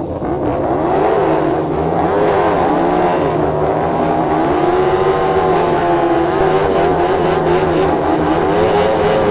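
A KTM 1290 Super Duke R Evo V-twin road bike and a KTM MotoGP bike's 1-litre V4 doing burnouts. The engines are held at high revs that waver up and down as the rear tyres spin against the tarmac.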